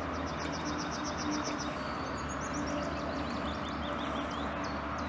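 A songbird singing over a steady low background rumble: a quick run of about ten high repeated notes, then a varied string of chirps and warbles.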